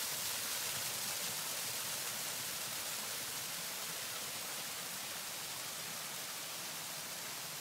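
Waterfall, water cascading over rock ledges: a steady rushing hiss that fades slightly toward the end.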